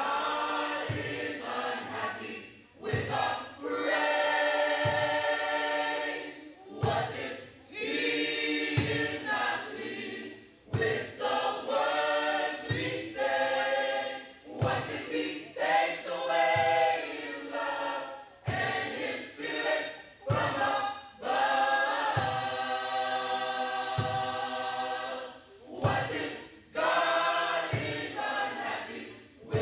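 Church choir singing a gospel hymn, many voices together in held chords and phrases of a few seconds each, with a low beat about every two seconds underneath.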